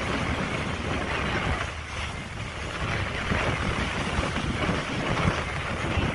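Steady outdoor rumble and hiss, with gusting low buffeting from wind on the microphone.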